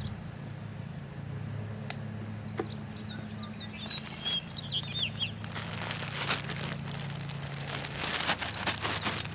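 Gritty crackling and rustling of bagged blacktop patch being poured and worked into a driveway hole, starting about five seconds in, over a steady low hum. A bird chirps a few times around four seconds in.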